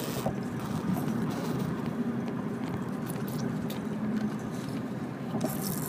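Steady low rumble inside a car's cabin: the car's road and engine noise, with no voice over it.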